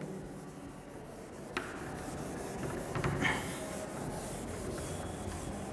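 Cloth wiping marker writing off a whiteboard, a steady rubbing with a light tap about one and a half seconds in.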